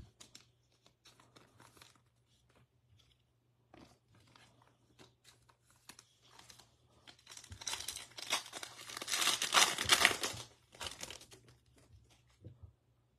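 Foil wrapper of a Prizm football card pack being torn open and crinkled, loudest for a few seconds from about seven and a half seconds in. Before that, soft handling of cards.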